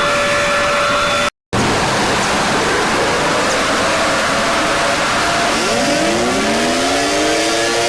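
Emergency alert siren audio. A steady alarm tone cuts off abruptly a little over a second in and is followed by a loud static-like hiss. About six seconds in, a siren starts winding up, several tones rising in pitch together.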